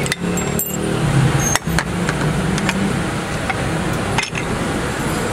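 A few sharp clinks and knocks of metal parts being handled as a large air impact wrench is taken apart, over steady workshop background noise.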